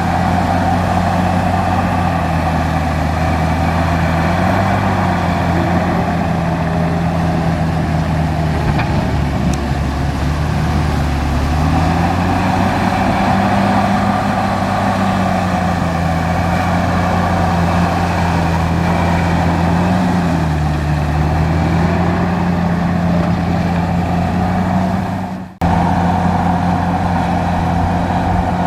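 Heavy bulldozer diesel engine running steadily under load, its pitch rising and falling a few times as the revs change while it pushes dirt. The sound drops out for a moment near the end.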